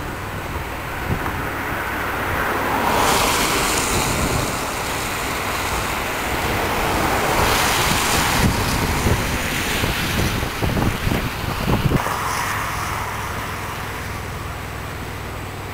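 Wind buffeting the microphone over a steady outdoor rush of noise, with two broad swells of hiss about three and eight seconds in.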